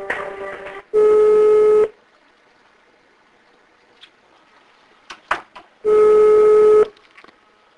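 Telephone hold music stops, then the line's ringing tone sounds twice: a steady one-second tone each time, about five seconds apart, with a few clicks between. The call is being put through and is ringing at the other end.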